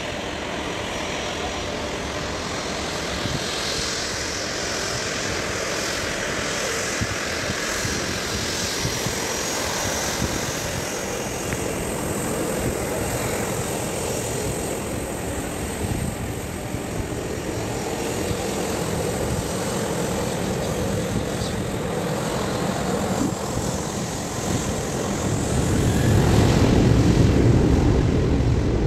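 Jet airliner's engines running steadily as it moves on the runway, growing louder with a deeper rumble about 25 seconds in as the thrust builds.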